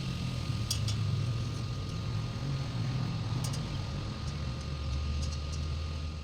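An engine running steadily with a low hum, a few faint ticks over it.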